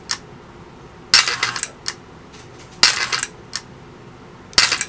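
Metal bin of a 1946 Lionel No. 3459 ore dump car clattering as its electrically worked mechanism tips the empty bin and lets it drop back. There are three sharp metallic clattering bursts about a second and a half apart, each followed by a single light click.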